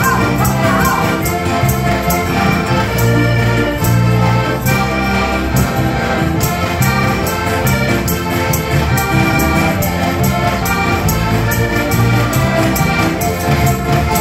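Live Slovak folk music from a band of several heligónkas (diatonic button accordions) backed by electric bass and acoustic guitar, playing a lively tune with a steady, even beat.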